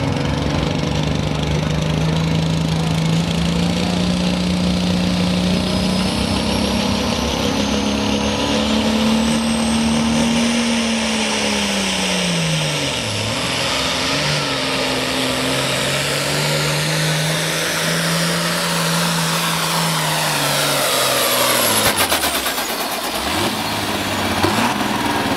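The 466-cubic-inch turbocharged diesel engine of an Allis-Chalmers Hot Farm pulling tractor runs hard, pouring out black smoke, as it drags the weight sled down the track. Its pitch climbs, drops away about halfway through, climbs again, and falls off sharply near the end as the pull finishes.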